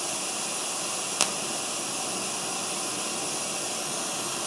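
Pink noise hissing steadily from an Infinity speaker, bright in the highs: the signal lost across a 100 m cable, played back with the gain and highs turned up. One sharp switch click about a second in flips the feed between the W1 audio snake and the SuperCat Cat5e cable.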